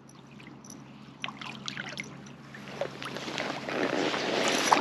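Water splashing and sloshing as a hooked trout fights near the surface by the landing net, with a few light clicks, growing louder toward the end.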